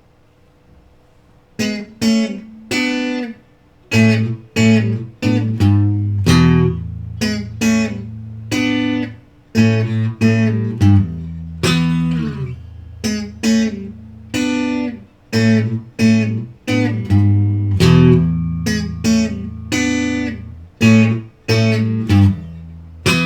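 Telecaster-style electric guitar with the selector in the middle position, bridge Hot Rails and neck single-coil pickups together, played through an amp's clean channel. After about a second and a half, a run of picked chords and single notes, each struck and left to ring out.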